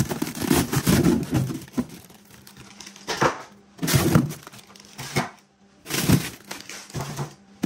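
Irregular rustling and handling noises in short bursts, busiest in the first couple of seconds.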